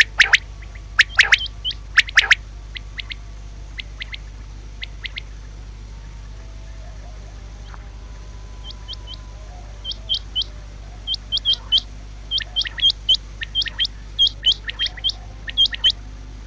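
Common quail calling: a few sharp, loud high calls at the start, a few fainter ones, then after a pause a quick series of short high notes, many of them in pairs, to the end.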